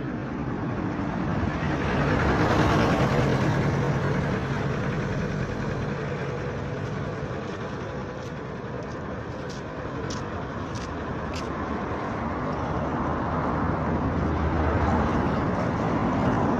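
Motor vehicles going by on the road, engine and tyre noise. It swells to a peak about two to four seconds in, eases off, then swells again near the end, with a few faint clicks in between.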